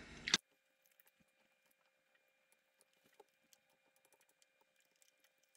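Near silence, with a brief knock near the start and then faint, scattered light ticks from a silicone spatula stirring liquid in a stainless steel mixing bowl.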